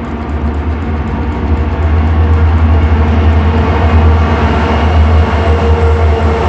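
Freight train passing close by: the EMD six-axle diesel locomotives going by, then a long string of hopper cars rolling past with a heavy, steady low rumble of wheels on rail. It grows louder over the first couple of seconds and then holds.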